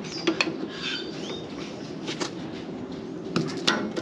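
Hook-type oil seal remover clicking and scraping against the oil seal and hub of a Toyota Land Cruiser's swivel hub as it is worked to get a grip on the seal: a few sharp metal clinks, with a quick cluster near the end.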